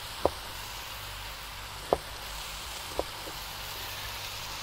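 Kitchen knife knocking on a wooden cutting board while chopping a jalapeño, three sharp knocks and a faint fourth, over a steady sizzle of meat on the charcoal grill.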